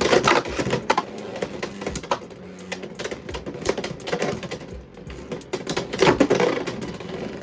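Beyblade X spinning tops battling in a plastic stadium: rapid irregular clicking and clattering as they spin, grind and collide, with louder clashes near the start and again about six seconds in.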